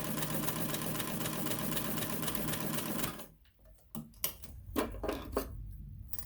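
Vintage Signature sewing machine running steadily, stitching a decorative cam pattern, then stopping abruptly about three seconds in. A few light clicks and knocks follow.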